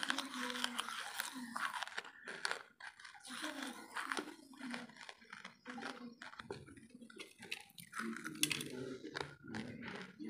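Hard wood charcoal being bitten and chewed: an irregular run of crisp, crackling crunches.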